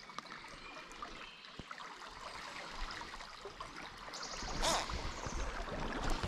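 Shallow river water running and gurgling over a riffle, steady, growing fuller with a low rumble from about four seconds in, and a short burst of louder rushing noise soon after.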